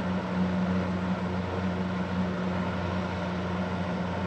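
Super Electric 14-inch box fan (model 1475) running steadily on medium speed: a steady low motor hum under the even rush of air through the blades.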